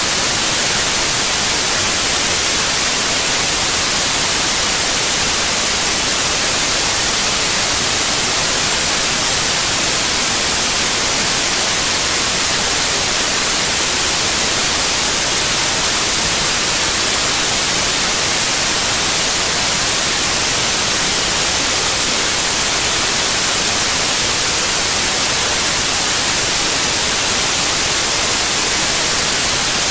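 Loud, steady hiss of static, even and unchanging throughout and strongest in the highest pitches.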